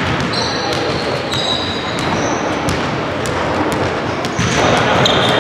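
Basketball game play: a ball bouncing, with repeated sharp knocks and short high shoe squeaks on the court. The noise of play grows louder near the end.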